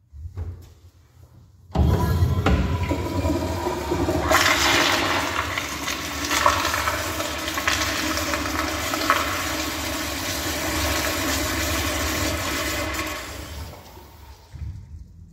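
1999 American Standard Madera wall-hung toilet flushing through its flushometer valve. After a short click there is a sudden loud rush of water about two seconds in, which runs steadily for about eleven seconds and then tapers off.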